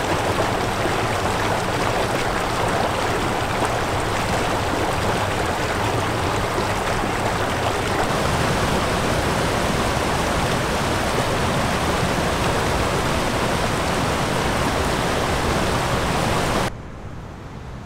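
Fast-flowing mountain creek water, a steady loud rush that cuts off abruptly near the end.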